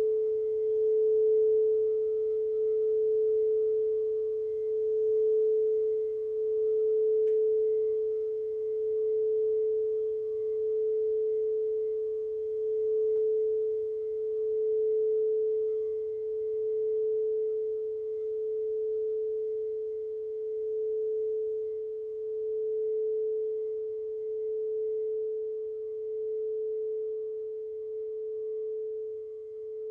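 A singing bowl sustaining one steady mid-pitched note, its loudness swelling and ebbing in a slow wobble about every two seconds while it slowly dies away.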